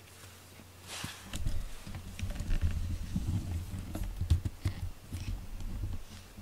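A short rustle about a second in, then a run of soft, irregular low thumps and patter: a cat's paws padding on foam floor mats close to the microphone.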